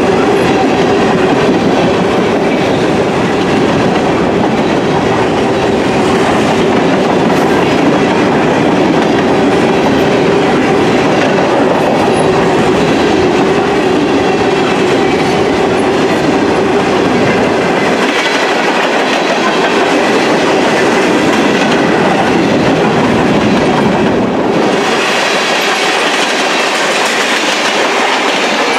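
Freight train's covered hopper cars rolling past close by: a loud, steady rolling noise of steel wheels on rail.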